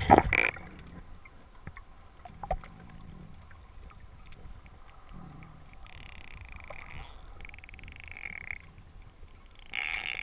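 Muffled underwater sound heard through a GoPro's waterproof housing: a loud knock right at the start and a sharp click about two and a half seconds in, over a low steady rumble. Near the end come three rasping, pulsing sounds of a second or so each.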